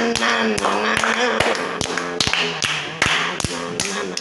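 A voice mimicking a heavy-rock tune with a held, wavering tone, over a steady run of sharp taps about three a second.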